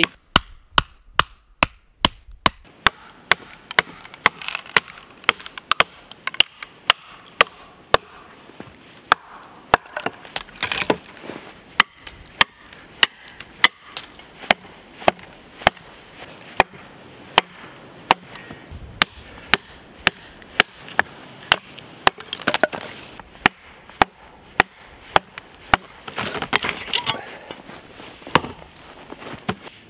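Mallet hammering wedges into a log to split it, steady sharp knocks about twice a second.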